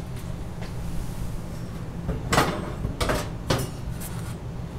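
Several short knocks and clatters in the second half from reaching into the metal cabinet of a smoker used as a paint-curing oven and handling the parts hanging from its wire rack, over a steady low hum.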